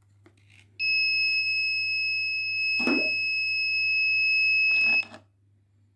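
The buzzer of a flame-sensor fire alarm circuit sounds one steady high-pitched tone for about four seconds, set off by the sensor detecting a flame, then cuts off suddenly.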